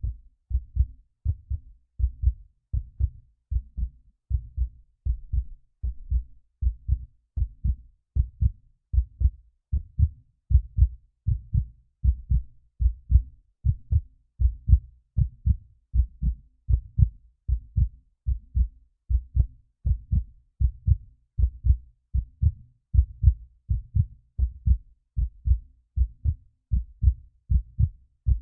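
Heartbeat sound effect: a steady lub-dub rhythm of paired low thumps, a little over one beat a second.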